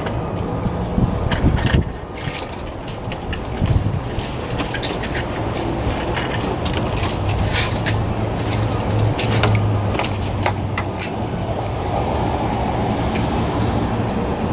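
Small metal clicks and clinks of hand tools and parts being handled in an engine bay, scattered irregularly over a steady low drone.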